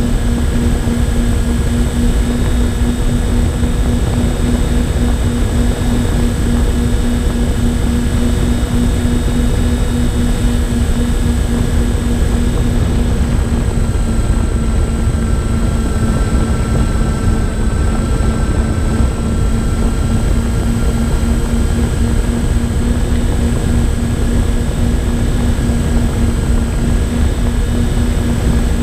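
Twin electric motors and propellers of a MyTwinDream FPV plane droning at a steady cruise pitch, heard from the onboard camera, with wind rumbling over the microphone and a thin high whine held steady above.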